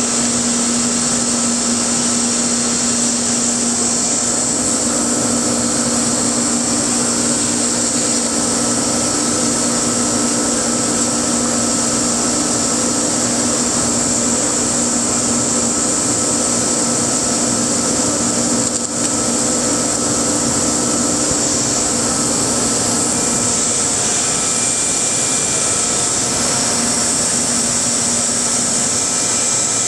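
2015 Multicam 3000 Series CNC router running, its spindle and bit milling pockets in a white sheet: a steady hum with a strong high hiss over it, dipping briefly about two-thirds of the way through.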